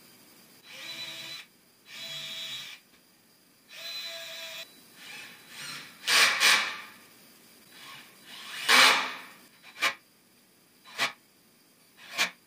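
Cordless drill-driver running in short bursts while screws are driven into a wooden cabinet side: three brief whirring runs, then two louder, harsher runs, then a few sharp clicks near the end.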